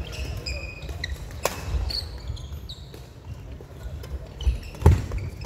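Badminton rally in a large sports hall: rackets striking the shuttlecock with sharp cracks, one about one and a half seconds in and the loudest near the end, amid short squeaks of sneakers on the wooden court floor.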